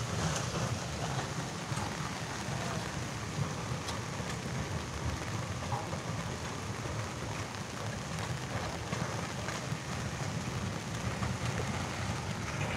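Steady rain falling, with a low, unsteady rumble underneath.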